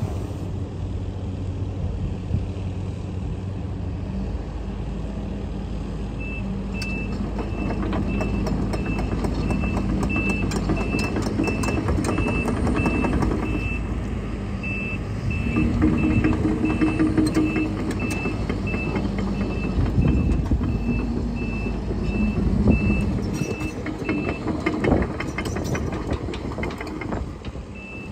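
2019 Case CX130D excavator's diesel engine running steadily while the machine moves. Its motion alarm beeps at a steady high pitch, about one and a half beeps a second, starting about six seconds in and stopping shortly before the end. Clanks and rattles come through as it moves.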